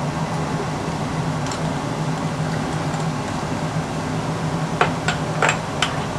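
Steady hum of laboratory ventilation, with a few short clicks near the end as glass test tubes and a pipette are handled in a plastic test-tube rack.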